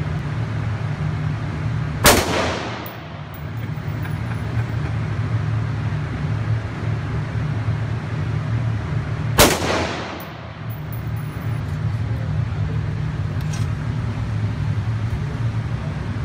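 Two rifle shots about seven seconds apart, each ringing out with echo off the walls of an indoor range, over a steady low hum.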